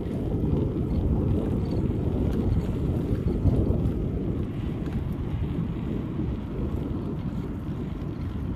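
Wind buffeting the microphone on a moving bicycle: a steady, low, toneless noise.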